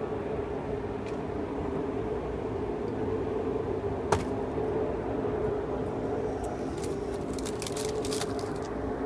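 A steady machine hum runs throughout. There is a single sharp knock about four seconds in, and a run of crinkling clicks over the last few seconds as a packet of graham crackers is handled.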